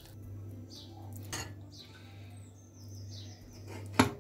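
A wooden spoon scrapes and knocks against a saucepan as thick palkova is emptied into a bowl, with a sharp knock near the end and a softer one about a second in. Birds chirp in the background with short falling calls over a steady low hum.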